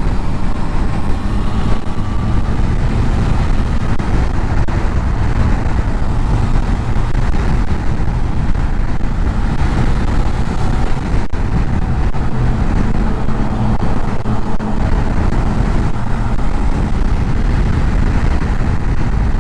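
Motorcycle being ridden at steady speed: a dense, even rush of wind and road noise with the engine running underneath. A single sharp click about eleven seconds in.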